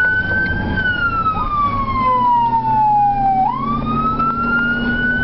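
Fire-rescue vehicle's siren wailing, heard from inside the responding vehicle: a slow wail whose pitch rises, falls steadily through the middle, then climbs again near the end. Engine and road rumble run underneath.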